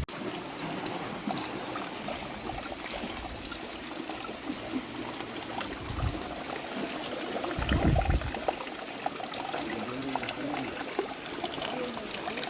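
Creek water flowing steadily. Two low thumps come about six and eight seconds in.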